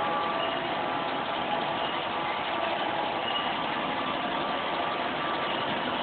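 Plastic granulator line running: the extruder's electric motor drive and screw making a steady, even mechanical noise with faint steady tones.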